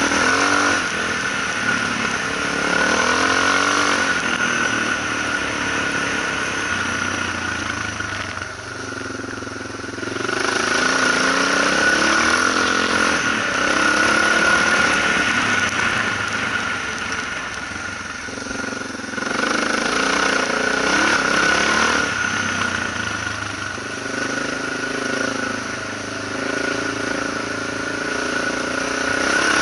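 Suzuki DR650's single-cylinder engine pulling a rider along a gravel forest track, its pitch rising and falling with the throttle, easing off twice: about eight seconds in and again near the middle.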